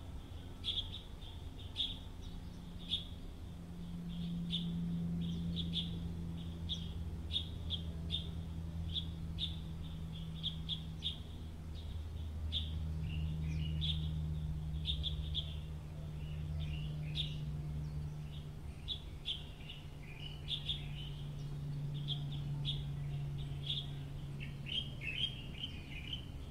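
Small birds chirping, short high calls repeated every second or so, over a low hum that swells and fades every few seconds.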